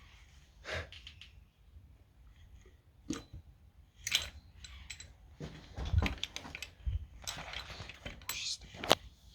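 Irregular light metallic clicks and clinks as engine parts and tools are handled during a teardown, with a couple of duller knocks about six and seven seconds in.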